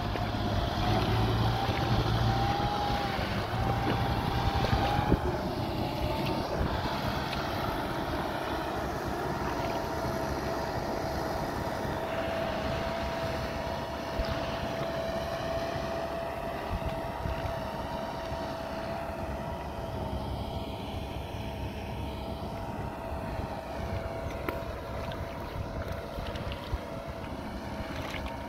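Tractor engine running steadily while its rotary tiller churns a flooded paddy field, loudest in the first few seconds and growing fainter as the tractor moves away, with a steady whine over the engine throughout.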